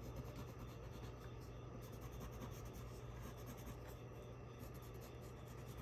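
Faint scratching of a white colored pencil shading on blue construction paper, over a low steady hum.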